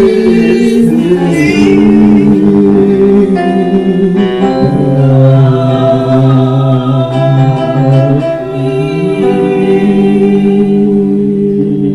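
Gospel singing with held notes and instrumental accompaniment.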